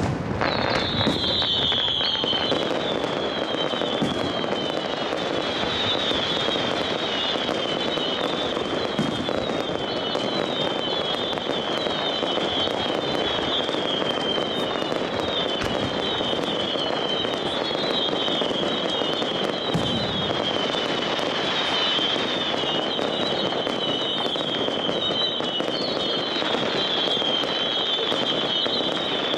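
Fireworks display: an unbroken run of whistling fireworks, each whistle falling in pitch and overlapping several times a second, over a continuous crackle of small bursts. A bang comes right at the start.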